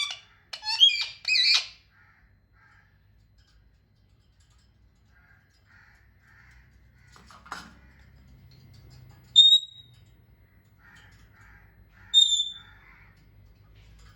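Pet parrot squawking and calling: a run of loud squawks in the first couple of seconds, then soft quiet chatter, a faint knock, and two short sharp high-pitched calls, one about nine seconds in and one about twelve.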